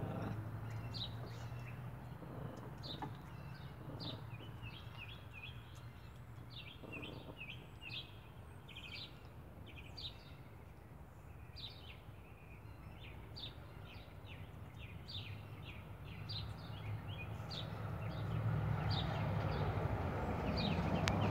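Small birds chirping throughout in many short, quick notes that sweep downward, over a steady low hum. A broad rumble grows louder near the end.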